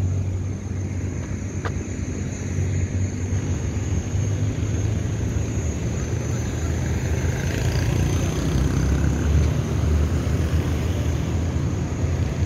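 Road traffic: cars and motorbikes running past in a steady low rumble, with one passing vehicle growing louder from about seven to ten seconds in.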